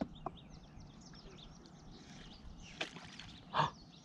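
A kayak paddle is handled and dipped, giving a few short splashes and knocks; the loudest comes just before the end. Faint bird chirps are heard in the background.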